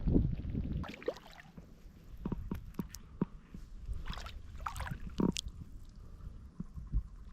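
Shallow water and mud being stirred: a low rumble for the first second, then scattered splashes, squelches and short clicks.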